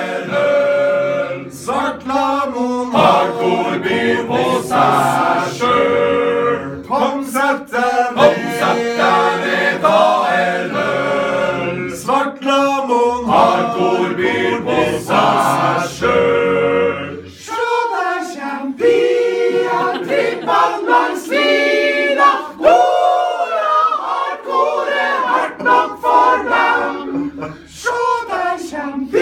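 A men's choir singing a cappella, several voices in harmony with no instruments.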